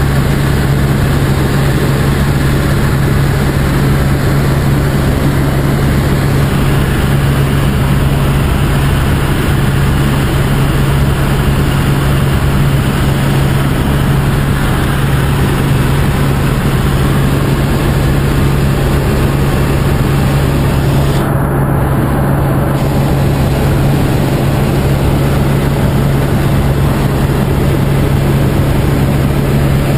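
Helicopter in flight heard from inside the cockpit: the turbine and main rotor running steadily, a loud even cabin noise with a strong low hum.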